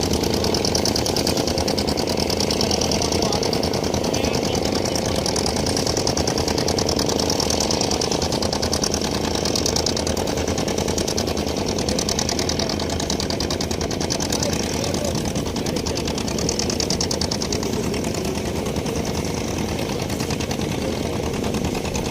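A boat's engine running steadily with a rapid, even knocking beat.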